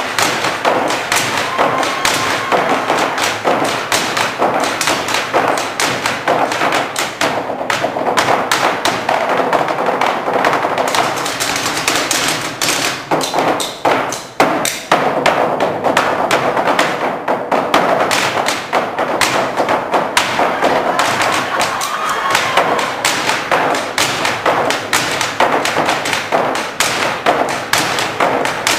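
Ensemble of performers beating drumsticks on wooden tabletops in a fast, dense rhythm, with a brief break about halfway through.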